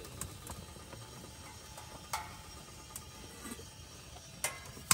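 A few sharp clicks and knocks over a low steady hum; the loudest click comes just before the end.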